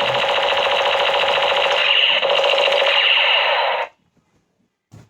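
Battery-operated toy machine gun playing its electronic rapid-fire sound effect through its small speaker, a thin, rapidly repeating rattle that cuts off suddenly about four seconds in.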